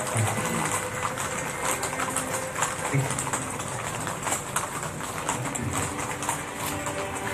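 Many horses' hooves clattering on a paved street, an irregular, overlapping stream of clip-clops from a large group of riders passing.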